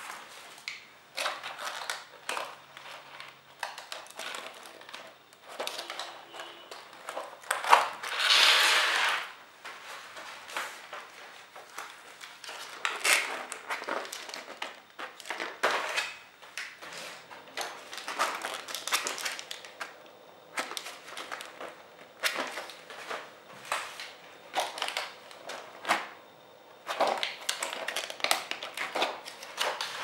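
Plastic fiber optic adapters and a clear plastic blister tray being handled on a tabletop: scattered small clicks, taps and rustles, with a longer, louder rustle about eight seconds in.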